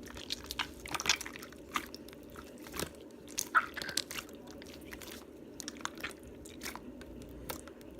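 Clear slime mixed with gummy-candy charms being pressed and squished by hand: irregular sticky clicks, crackles and pops, the loudest about a second and three and a half seconds in, over a steady low hum.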